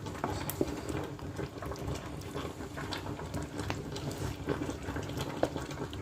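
Food bubbling in a cooking pot, a steady simmer with scattered small pops and clicks.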